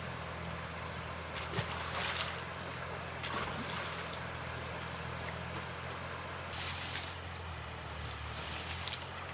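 Small boat engine running steadily, with a few brief splashes of water.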